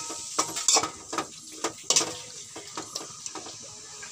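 Spoon scraping and clinking against a metal pan while stirring chicken pieces frying in oil. There are several sharp scrapes in the first two seconds, then fewer, softer ticks over a low sizzle.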